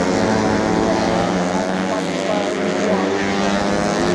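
Tuned four-stroke underbone race motorcycles running at high revs, several engine notes overlapping and holding fairly steady.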